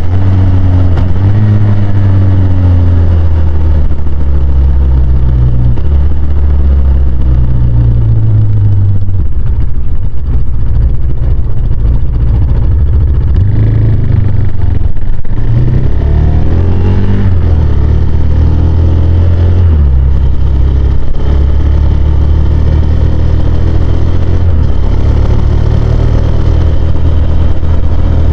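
Husqvarna Svartpilen 401's single-cylinder four-stroke engine running under way, its note climbing and dropping repeatedly with throttle and gear changes, including a marked rise about two-thirds of the way through.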